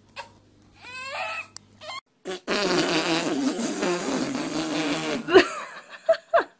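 A long fart lasting about three seconds with a wavering low pitch, after a shorter sound near the start; a few short separate sounds follow near the end.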